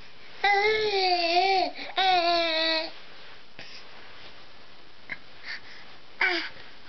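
Baby vocalizing: two long, wavering, high-pitched calls about half a second in, then a short call near the end.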